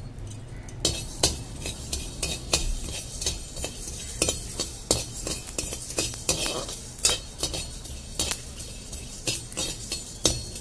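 A metal slotted spoon scraping and clicking against a metal kadhai as coriander seeds are stirred while dry-roasting. The strokes come irregularly, about one or two a second.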